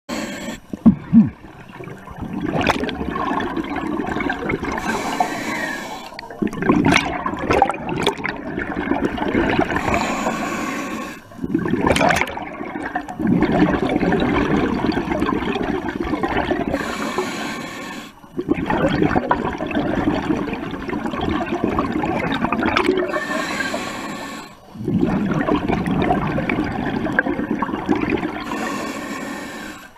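Scuba diver breathing through a regulator underwater: a short hiss of each inhale followed by several seconds of bubbling exhale, about five breaths repeating every five to seven seconds. A couple of loud knocks about a second in.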